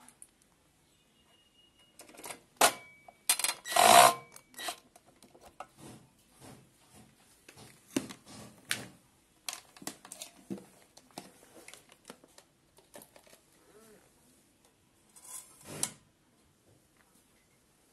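Hands handling a wall-mounted UVC microphone sterilizer's plastic housing and metal holder brackets: an irregular run of clicks and knocks, loudest a few seconds in.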